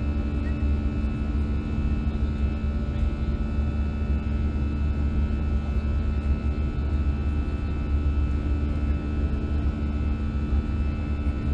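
Steady cabin noise of an Airbus A320 climbing after takeoff, heard from a window seat over the wing: a deep, even rumble with the engines' few steady humming tones on top.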